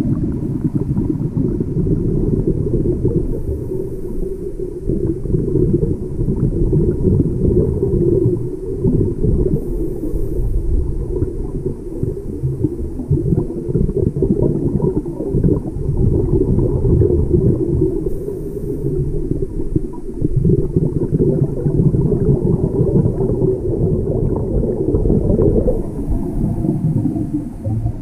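Underwater sound picked up through a camera's waterproof housing: a continuous muffled rumbling and gurgling of water, with no clear tone.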